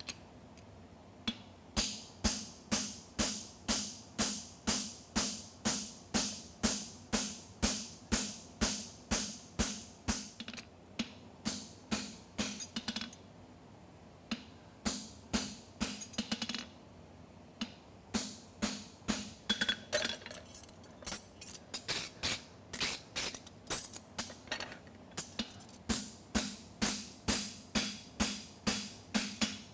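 Hammer striking a handled fuller held in the hot steel horseshoe: fullering the nail crease. The metal-on-metal blows come about two a second, each ringing briefly, with a couple of short pauses about halfway through.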